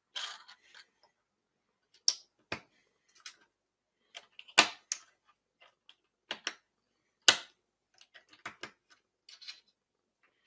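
LEGO bricks being handled and pressed together by hand: a scatter of sharp plastic clicks and taps, the loudest about four and a half and seven seconds in.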